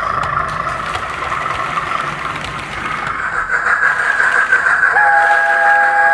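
Model railway running sound from the passing train's digital sound decoder, easing off, then a steam locomotive whistle from a DCC sound decoder blowing steadily for about two seconds near the end.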